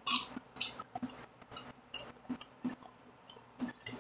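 Close-up chewing of raw watercress: a run of short, crisp crunches, about two a second.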